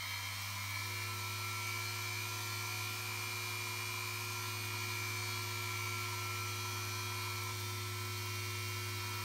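Flex-shaft rotary tool running steadily, its small drill bit grinding a first hole into a stone pebble under firm downward pressure. A steady whine over a low hum, which takes on a slightly different tone about a second in.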